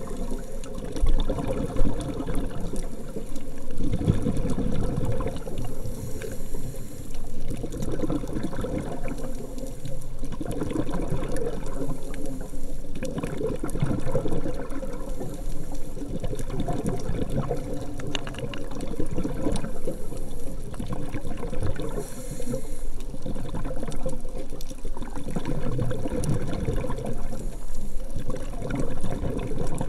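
Muffled underwater water noise picked up through a camera's sealed underwater housing: a dull, low rush that swells and eases every few seconds.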